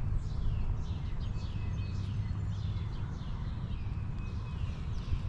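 Birds calling, a busy run of quick downward-sliding chirps, over a steady low rumble.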